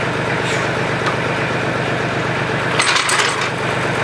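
A steady engine-like drone, with a brief metallic clatter about three seconds in.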